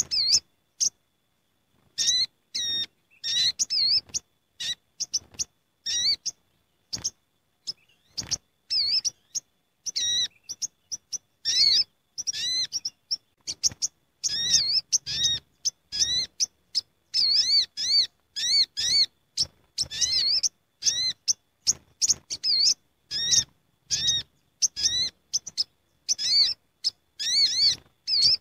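Olive-backed sunbirds calling as a noisy gathering: many short, high chirps in quick succession, each rising and falling in pitch, with a short break near the start.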